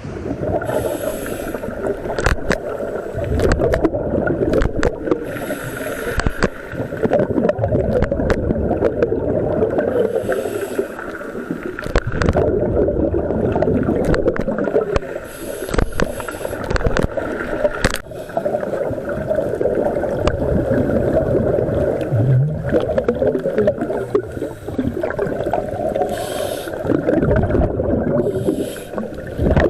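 Scuba breathing through a regulator, heard underwater: a steady muffled bubbling and gurgling, with a hiss every few seconds and scattered sharp clicks.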